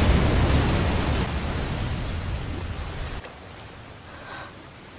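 Explosion sound effect from a mass of detonating paper bombs: a loud, low rumbling blast that fades over about three seconds. It then cuts to a steady hiss of rain.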